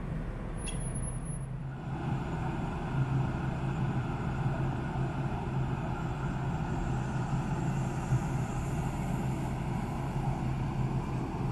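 Steady low drone of a large ferry's machinery and funnel ventilation on the open deck, with a rushing noise that grows louder about two seconds in.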